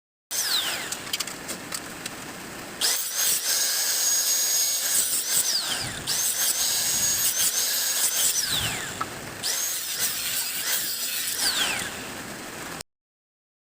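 A power tool running in a long stretch, with a hissing, grinding noise and several falling whines, growing louder about three seconds in and cutting off abruptly near the end.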